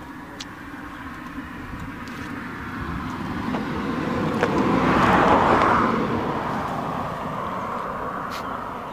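A vehicle passing on the road: engine and tyre noise grows louder to a peak about five seconds in, then fades away.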